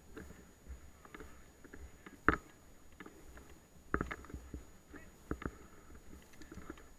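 Footsteps crunching and shuffling through dry fallen leaves and bracken on a woodland path, with irregular thuds and crackles and a few sharp snaps, the loudest a single sharp crack about two seconds in.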